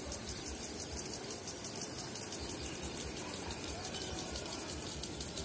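Impact sprinklers spraying water: a steady hiss with fast, faint ticking.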